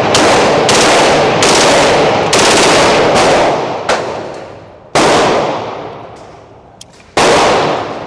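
Smith & Wesson M&P 2.0 9mm pistol with a forced-reset trigger, firing Winchester 115-grain rounds: a string of loud shots, about one a second for the first three seconds, then two more spaced a couple of seconds apart. Each shot has a long, echoing tail.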